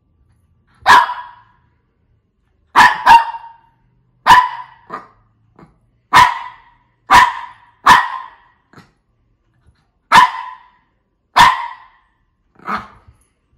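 Shih Tzu barking: about ten short, sharp single barks at uneven intervals of roughly one to two seconds, a couple in quick pairs, the last one softer.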